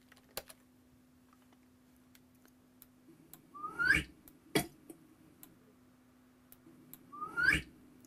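An MP3 sound effect played through the computer each time a draggable circle is dragged in a web page. It is heard twice, about three and a half and seven seconds in, as a short sound that rises steeply in pitch. Between them come a few sharp clicks, one loud.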